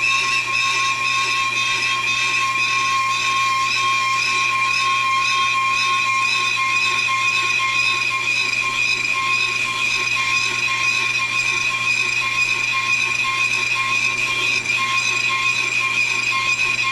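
Pro-Cut on-car brake lathe running, spinning the brake rotor, with a steady high-pitched ringing from the rotor. The ringing is vibration that the lathe's chip deflector is meant to damp out.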